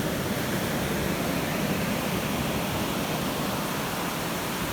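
Ocean surf: a steady, even rush of waves washing in.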